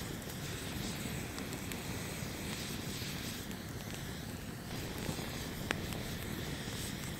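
Wood campfire burning, with a few faint crackles and one sharper pop a little under six seconds in, over a steady low rush.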